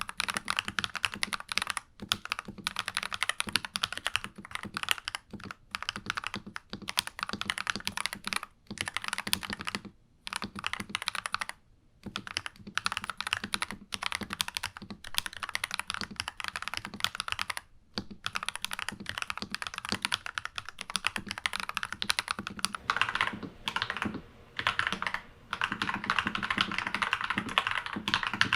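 Typing on a NuPhy Halo96 mechanical keyboard with lubed Akko Vintage White switches: a fast, continuous run of key clacks, broken by a few short pauses.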